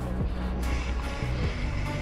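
Background music with a steady beat and sustained bass.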